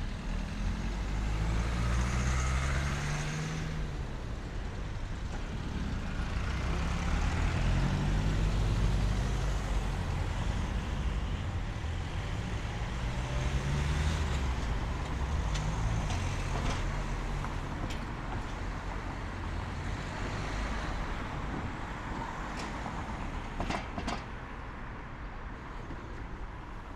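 Passing street traffic: car and van engines come and go in waves, their pitch rising as they pull away. A couple of sharp clicks come near the end.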